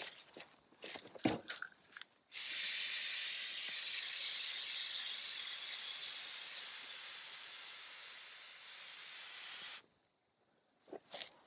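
Flex Seal aerosol spray can spraying black coating in one continuous hiss of about seven seconds. The hiss starts and stops abruptly and slowly gets quieter. A few sharp clicks and knocks come before it.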